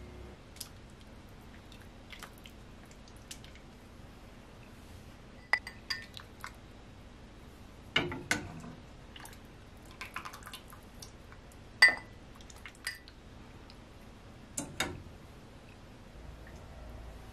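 Steel ladle clinking against a saucepan and a ceramic bowl as soup is ladled out, with broth pouring and dripping. A dozen or so short, sharp clinks come at irregular moments, a few in quick pairs.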